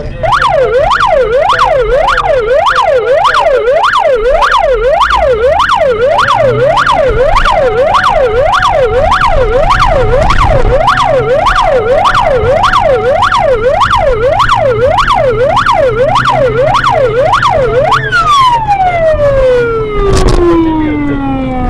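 Emergency vehicle siren on a fast yelp, its pitch rising and falling about twice a second, with a steady tone joining for a few seconds midway. About eighteen seconds in, the yelp stops and the siren winds down in one long falling tone.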